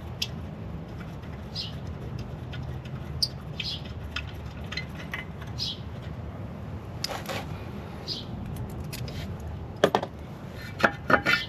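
Birds chirping now and then, short high calls, over a steady low background hum, with a few sharp clicks or knocks from tool work about two-thirds of the way in and again near the end.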